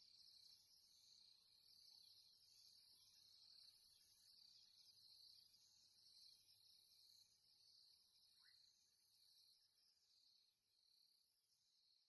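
Near silence: a faint chorus of insects trilling high and pulsing steadily, dying away near the end.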